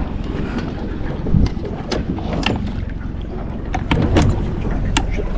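Wind buffeting the microphone on an open boat at sea, with a steady low rumble. Scattered sharp clicks and knocks come from the fishing reel and rod gear as the reel is wound in against a heavy fish.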